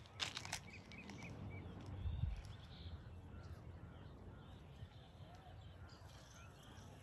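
Faint open-air ambience: scattered short bird chirps, a low rumble of wind on the microphone about two seconds in, and a few clicks at the start.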